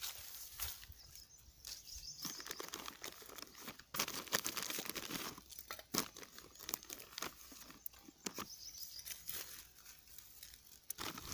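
Crinkling and rustling of a plastic nursery bag, with scraping of soil and small irregular clicks and knocks, as a rooted branch cutting is set into the bag and soil is pressed around it.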